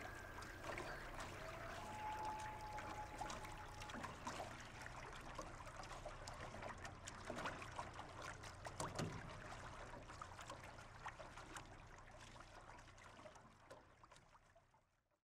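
Faint trickling water with scattered small clicks, fading out gradually and stopping just before the end.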